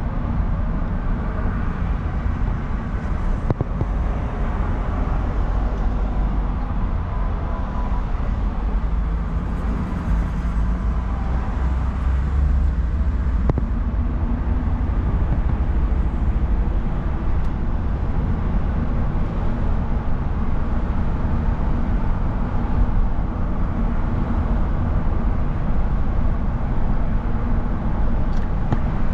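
Steady low rumble of a car's engine and tyres on the highway, heard from inside the cabin while driving.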